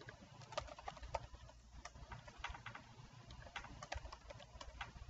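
Faint typing on a computer keyboard: irregular single keystroke clicks as a name is typed into a form.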